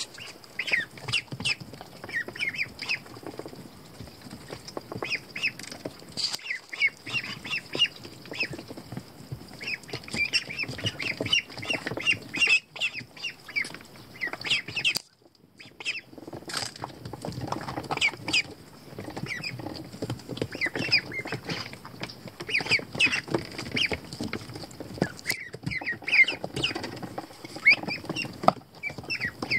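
A group of Pekin ducklings peeping continuously: many short, high calls overlapping one another. The calls break off for about a second halfway through, then resume.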